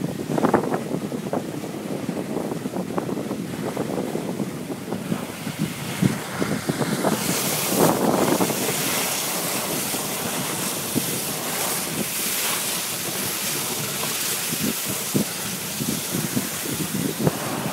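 Dog sled gliding over a packed snow trail: a steady rushing hiss from the runners and wind on the microphone, with frequent small knocks and bumps. The hiss grows louder and brighter about seven seconds in.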